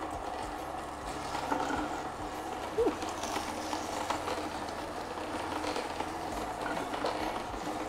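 Wartmann vertical slow juicer running as chopped celery stalks are fed through it: a steady low motor hum.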